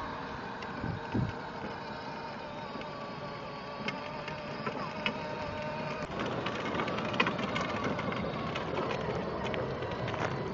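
Battery-powered ride-on toy Ferrari F430 driving along: the steady whine of its small electric drive motor, with scattered small clicks and rattles from its hard plastic wheels and body on the paving that come more often in the second half.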